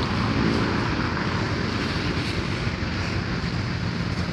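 Steady street traffic noise: a continuous low engine rumble with a hiss over it.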